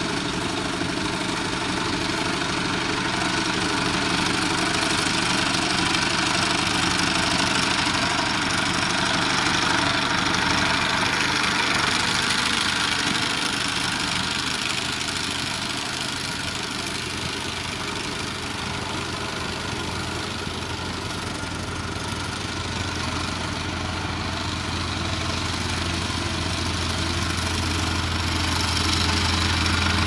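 Engine of a Vogel&Noot Jet 3 Hydro walk-behind motor mower running steadily while it mows grass with its sickle bar. A low hum grows louder near the end.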